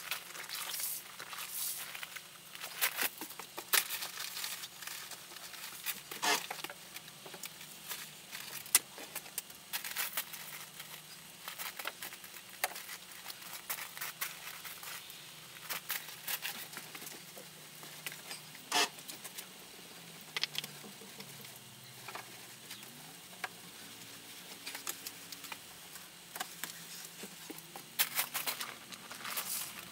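Van paintwork being hand-washed with a soapy wash mitt from a bucket: irregular rubbing, scrubbing and patter sounds as mould is worked off the panels.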